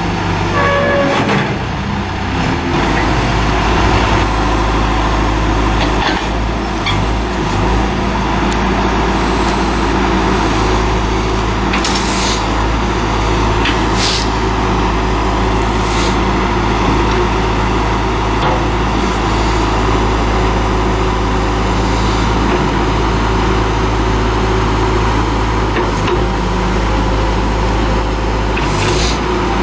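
John Deere 310SE backhoe loader's diesel engine running steadily, with a few sharp metallic knocks, one about twelve seconds in and others at about fourteen, sixteen and twenty-nine seconds.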